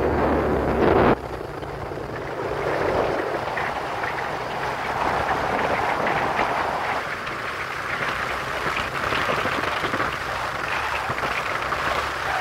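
Yamaha motorcycle riding along a road, with steady engine, tyre and wind noise. Heavy wind buffeting on the microphone cuts off suddenly about a second in.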